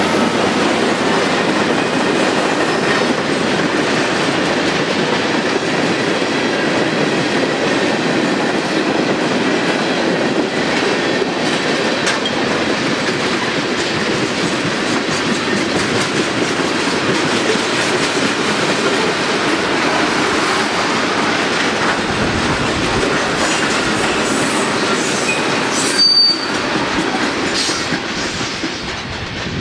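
Freight train cars (covered hoppers and tank cars) rolling past at close range: a steady rumble of wheels on rail with clicking over the joints. Near the end there is one brief high wheel squeal, then the sound fades as the last car goes by.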